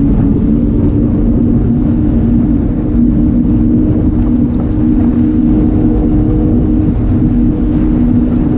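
MTI 390X catamaran's Mercury outboard engines running steadily at speed: a loud, even drone with several steady tones, over a constant rushing noise.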